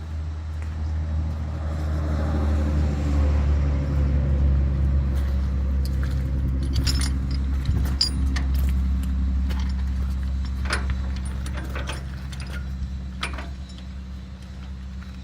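Steel tie-down chains clinking and rattling in several separate bursts as they are handled, over the steady hum of an idling engine that is louder in the first half.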